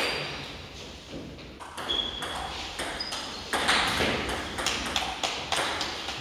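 Table tennis doubles rally: the ball clicking back and forth off the bats and bouncing on the table, a quick run of sharp ticks with short ringing pings, two or three a second.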